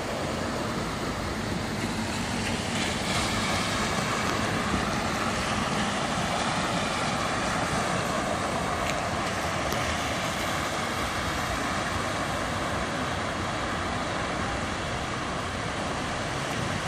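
Cars driving through floodwater covering the street, their tyres throwing up spray in a steady rushing splash.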